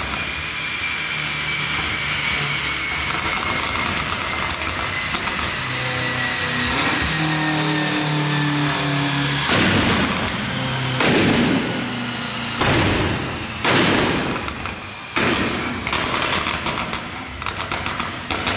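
Tuned BMW M5 F90's twin-turbo V8 on a dyno: a high whine falls slowly in pitch as the run winds down, then the exhaust fires off five loud bangs a second or two apart, backfires that shoot flames.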